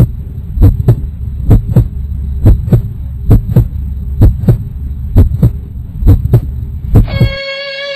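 Heartbeat sound effect: pairs of deep thumps, a little under one pair a second, over a steady low hum. It stops about seven seconds in, as a held musical note comes in.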